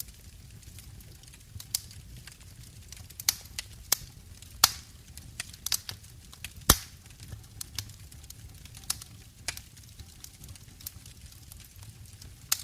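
Wood fire burning in a brick fireplace, crackling with irregular pops and snaps; two louder snaps come about four and a half and six and a half seconds in.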